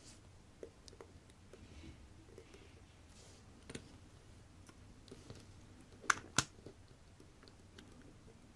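Small, faint clicks and taps of steel tweezers and metal parts on a vintage watch movement in its movement holder, with two sharper clicks in quick succession about six seconds in.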